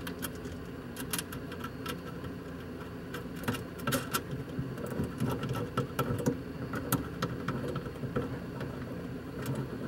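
Small irregular metallic clicks and ticks of a lock washer and nut being fitted by hand onto the bolt that holds a power cowl vent actuator, over a steady low hum.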